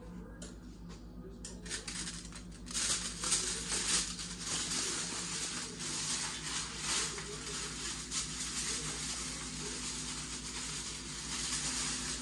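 Kitchen tap running into a stainless steel sink, a steady hiss with small splashes and clatters that starts about three seconds in, over a faint steady appliance hum.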